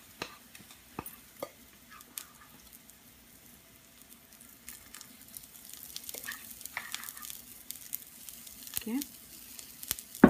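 Chickpea-flour pudla batter sizzling in a small frying pan on a stove burner, with scattered crackles and pops that grow denser after about four seconds.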